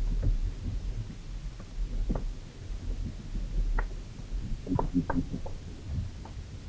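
Underwater sounds in a forest pond, picked up by hydrophones: a low throbbing rumble with scattered short clicks, and a quick run of short groans about five seconds in, from an unidentified source.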